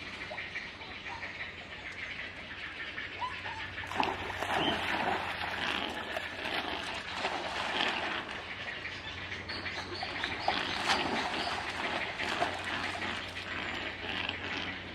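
A young Japanese macaque jumps into a pond about four seconds in, then splashes and paddles about in the water: a steady spatter of splashing.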